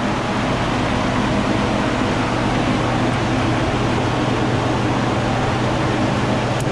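Steady mechanical drone with a low hum, unchanging throughout, from machinery running in a dyno room.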